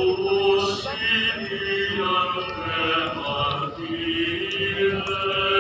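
Voices singing a slow hymn in long, held notes.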